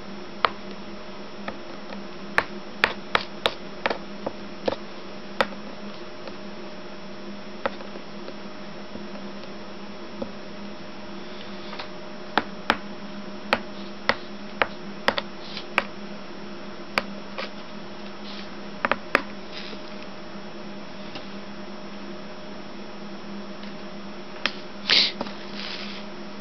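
Hot soldering iron working solder along stained glass seams: the flux crackles and spits in sharp scattered pops, a few in quick runs, with a short hissing sizzle near the end.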